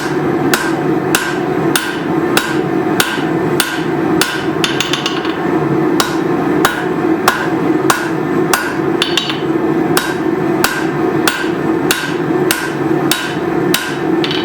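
Blacksmith's hand hammer forging leaf-spring steel on an anvil: an even rhythm of blows, about three every two seconds, a couple of them ringing out brighter. A steady hum runs underneath.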